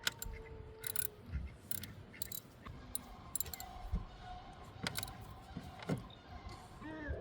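A string of sharp metallic clicks and clinks from hand tools and parts while connecting the wiring on a newly fitted alternator of a 7.3 Powerstroke diesel, about eight in all, irregularly spaced.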